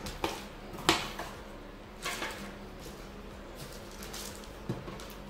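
Handling noises: a few light clicks and knocks, a sharp tap about a second in, and a brief rustle of paper and plastic packaging around two seconds in.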